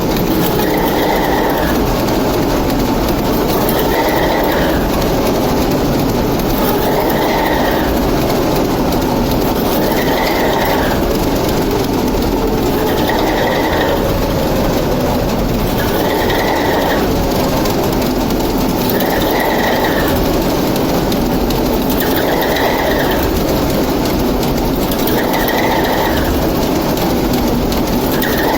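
TEP70 diesel locomotive's V16 diesel engine running loud and steady after repair, with a fainter higher-pitched swell that repeats about every three seconds.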